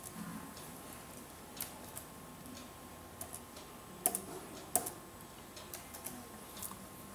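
Scattered clicks from a laptop's keys and touchpad buttons, with two louder clicks about four and five seconds in.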